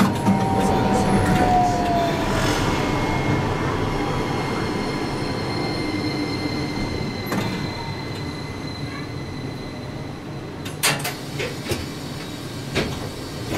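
Toyohashi Railway T1000 low-floor tram running along street track and slowing down, its steady running noise carrying a faint motor whine. There is a brief wheel squeal in the first couple of seconds and a few sharp clicks near the end.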